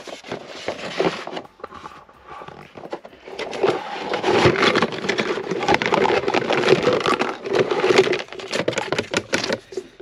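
Plastic packaging of a vinyl model kit rustling and crinkling as the parts are unpacked from their box: light handling at first, then loud, continuous crinkling from about three and a half seconds in until near the end.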